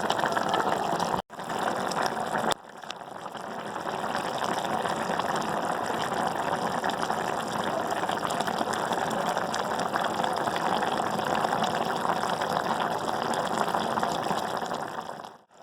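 Liquid boiling in a cooking pot: a steady, dense watery noise. It cuts out briefly about a second in, then drops sharply and builds back up, as clips are spliced together.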